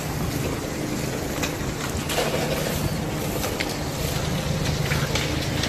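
Steady low roar of Kilauea lava advancing and burning through vegetation, with scattered sharp crackles and pops.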